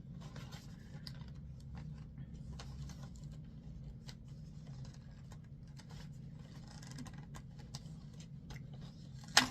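Fingers picking and scratching at the perforated cardboard door of an advent calendar box: a run of small, irregular scratches and clicks, with one sharp click near the end.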